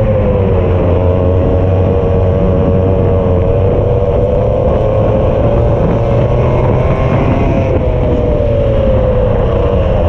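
Racing kart's two-stroke engine running hard, heard from the driver's seat; its pitch drops about a second in, climbs slowly back, and drops again near the end as the kart brakes and accelerates through corners.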